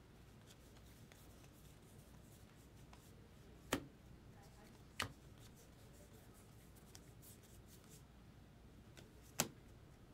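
Quiet handling of Topps Heritage baseball cards, with three sharp clicks a few seconds apart, the last the loudest.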